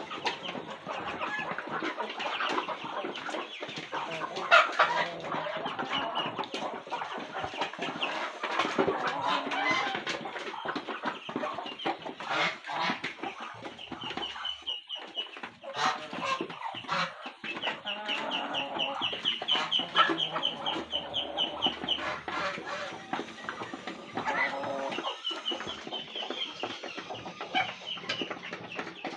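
A flock of chickens clucking and calling while feeding, with many short taps from beaks pecking at food. Partway through comes a run of quick, high, repeated calls.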